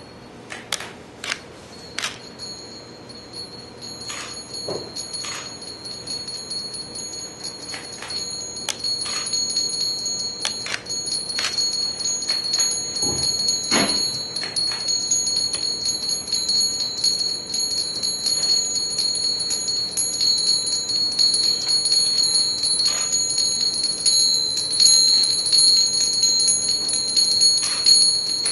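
High, steady metallic chiming tones, several held together, with scattered light strikes on top. The sound grows steadily louder.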